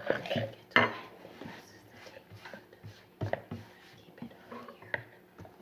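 A few sharp clinks and knocks of a utensil against a slime-mixing bowl, loudest in the first second, with quieter handling noise between.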